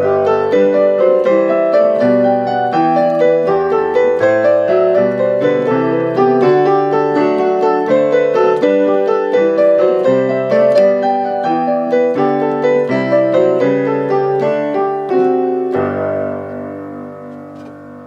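Solo piano music: a lively run of notes, ending near the close on a held chord that slowly fades out.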